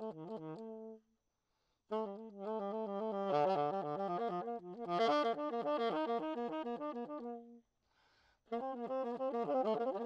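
Saxophone improvising fast free-jazz runs of rapid, quickly changing notes, in three phrases. The playing breaks off for a second about a second in and again just before the eight-second mark.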